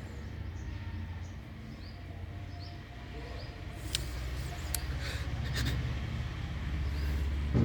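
A small bird chirping in a run of short, quick rising notes over a low steady rumble, followed by a few sharp clicks from about four seconds in.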